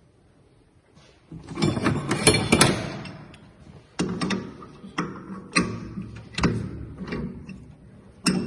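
Metal clatter and clicks of a chuck key and jaws on a four-jaw chuck being worked, about one to three seconds in. From about four seconds, a string of sharp, evenly spaced plucked notes, roughly one and a half a second, as background music comes in.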